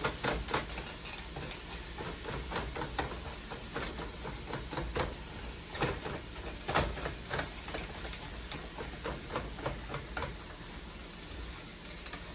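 Spatula knocking and scraping against a pot while mashing and breaking up cooked ground meat: irregular clicks and taps, several a second.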